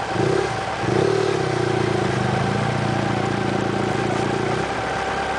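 Motorcycle engine pulling away from a standstill: the engine note picks up about a second in, holds steady under throttle, and eases off near the end.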